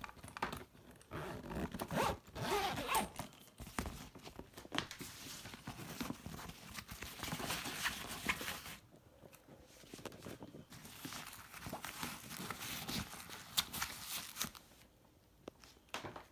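Zippers on a heavy-duty nylon carrying case being pulled open and shut, with the fabric rustling and handled. It comes in two spells with a short pause about nine seconds in, and dies down near the end.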